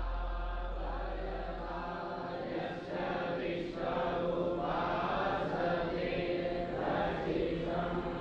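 Voices chanting a mantra in a slow, rising and falling recitation. A low steady drone sounds beneath it and stops about two seconds in.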